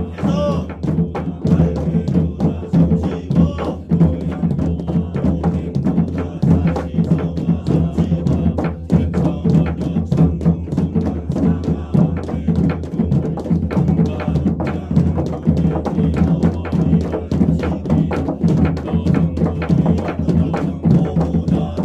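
Korean barrel drum (gojang) beaten with sticks in a quick, steady jangdan rhythm, the sharp stick strokes over a deep drum boom, as practice accompaniment for scripture chanting.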